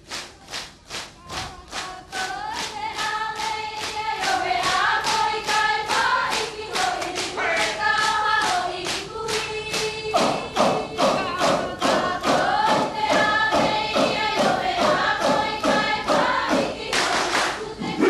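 Marquesan dancers chanting a traditional song together in unison over steady rhythmic hand claps, about three a second. The claps start alone, and the voices join about two seconds in.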